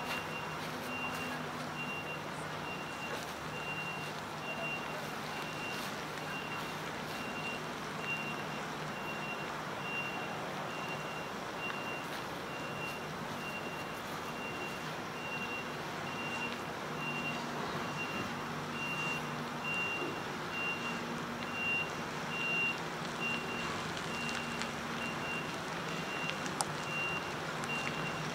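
Heavy-haulage truck's reversing alarm beeping at an even pace, a single high tone, over the low steady running of the truck's diesel engine as the multi-axle low-loader creeps along.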